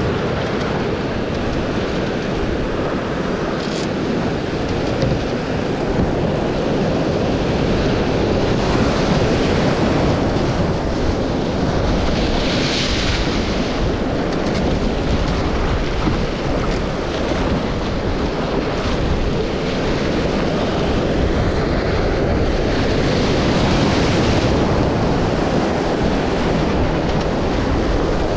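Rushing whitewater of a flood-swollen river rapid, heard close up from a canoe running through it, with wind on the microphone. The hiss of the water swells in louder surges about halfway through and again near the end.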